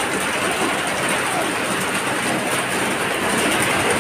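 Steady rushing of fast-flowing floodwater pouring across a road, mixed with heavy rain.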